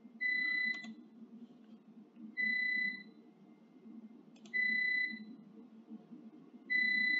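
Repeated electronic beeping: a single high, steady tone about half a second long, sounding four times about two seconds apart. A few soft clicks fall between the beeps.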